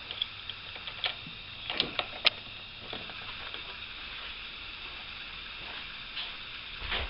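A few sharp clicks and taps over a steady hiss: several in the first two and a half seconds and another near the end.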